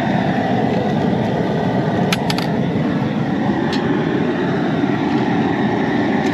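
Propane jet burner under a crawfish boil pot, running with a steady rushing noise. A few sharp clicks come about two seconds in and again near four seconds.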